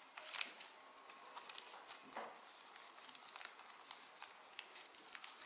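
Origami paper being folded and creased by hand: irregular soft ticks and brief rustles as the fingers press the folds.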